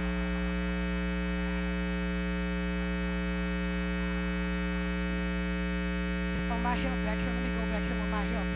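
Steady electrical mains hum with many evenly spaced overtones, unchanging throughout; faint voices rise briefly about seven seconds in.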